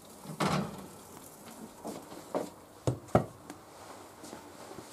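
Kitchen handling noises as a baked panettone in its mould is taken out of the oven and set down: a short scrape about half a second in, then a few light knocks.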